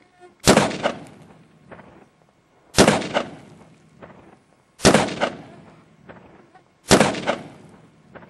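Four rifle shots from a .223, evenly spaced about two seconds apart, each sharp crack trailing off over about half a second.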